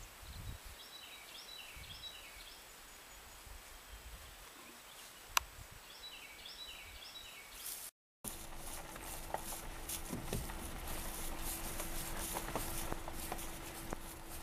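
A small bird sings a short phrase of quick high notes twice over quiet outdoor background noise, with one sharp click in between. About halfway through the background turns louder and rougher, with scattered clicks and a faint steady hum.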